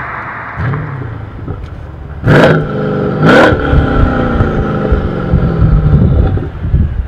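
Mercedes-AMG S63 (W222) twin-turbo V8 through an MEC Design valved exhaust in its normal setting: engine sound fading at first, then two sharp throttle blips about a second apart, the revs rising and falling back to a steady idle.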